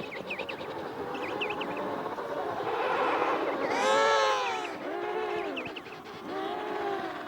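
Emperor penguins in a colony giving their trumpeting calls: several overlapping calls that rise and fall in pitch, the loudest about halfway through. Short high peeps from emperor chicks come in over them a few times.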